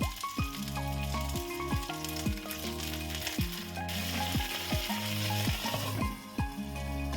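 Food sizzling in a frying pan on the stovetop, over background music with a steady beat of deep drum hits that drop in pitch. The sizzle thins near the end.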